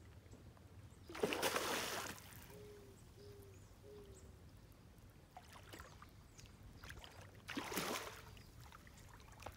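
Two splashes of a hooked fish thrashing at the pond surface while it is being played on the rod, one about a second in and a shorter one near the end.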